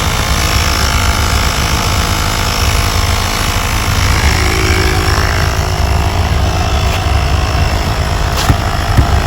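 Sun Joe 24V cordless air compressor running steadily under load, pumping air into an ATV tire to force its bead onto the rim.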